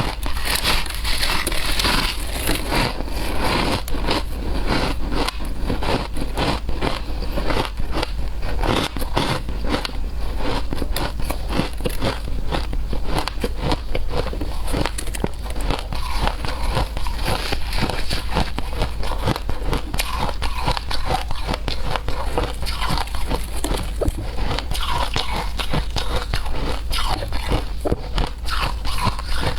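Shaved ice being bitten and chewed close to the microphone: a dense, unbroken run of crisp crunches and crackles.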